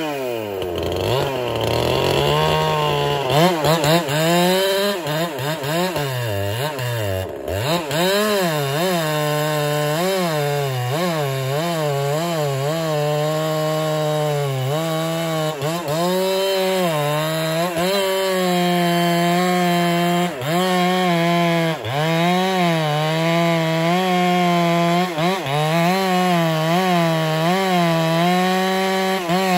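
Husqvarna 372 chainsaw cutting wood: the engine note drops each time the chain bites under load and rises back as it frees, over and over.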